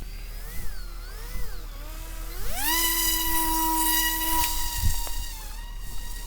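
BE1404 4300 kV brushless motor and propeller on a homemade foam RC plane, whining: the pitch wavers at first, climbs steeply as it is throttled up about two and a half seconds in, holds steady for about two seconds, then drops back. The battery is nearly flat, so the motor lacks the power to fly the plane.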